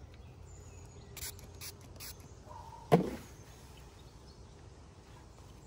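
Three short hisses from a pump-spray bottle of tanning oil, then a single sharp knock about three seconds in, the loudest sound.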